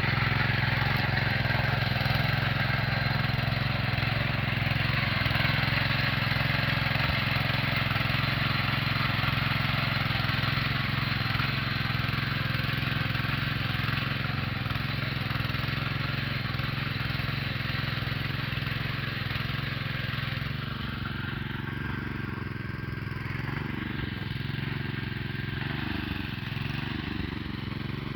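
Rotary tiller (rotavator) and its engine running steadily while tilling a sugarcane field, with a constant low drone and a dense rattle of the working blades; it gets somewhat quieter over the last third.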